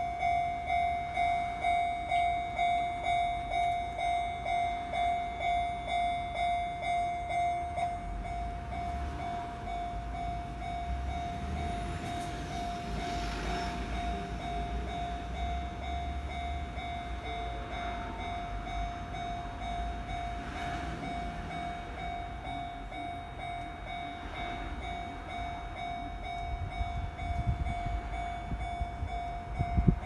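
Japanese level-crossing warning bell ringing about twice a second, a steady single-pitched ding that gets quieter about eight seconds in. Near the end a Kintetsu train rumbles in.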